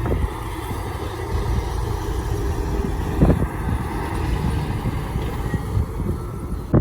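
Diesel engine of heavy construction machinery running with a steady low rumble, with a single knock about three seconds in.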